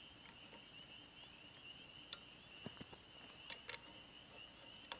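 Faint, steady high-pitched insect trill with a few sharp clicks in the middle.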